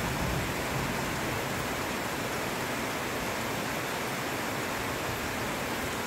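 Heavy rain pouring down steadily: a dense, even hiss.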